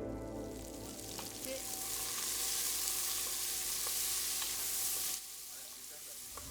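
A steady, sizzling hiss that cuts off suddenly about five seconds in, under the fading tail of soft music.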